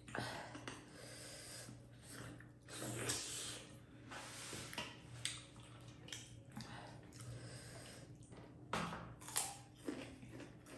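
Close-up eating sounds: soft chewing and mouth noises with audible sniffing and breathing through the nose, from a head cold. A few short sharper mouth sounds come near the end.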